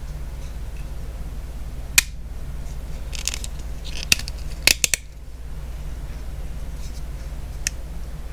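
Sharp plastic clicks and snaps as a car phone mount's vent clip and ball joint are worked by hand. There is one click about two seconds in, a quick cluster of several around four to five seconds in, and a single one near the end.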